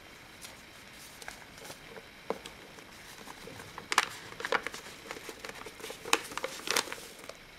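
A paper bag of icing sugar crinkling and rustling as it is tipped and shaken over a metal mixing bowl. There are clusters of sharper crackles about four to five seconds in and again about six to seven seconds in.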